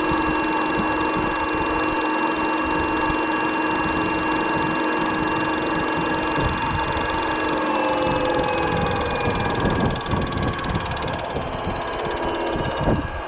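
Old washing machine running with a steady mechanical whine of several held tones over a low rumble, not yet spinning up; a single knock comes near the end.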